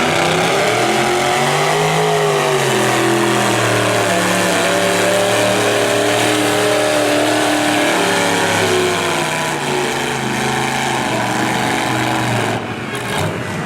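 Demolition derby car's V8 engine running under throttle. Its pitch swells briefly about two seconds in, then holds fairly steady.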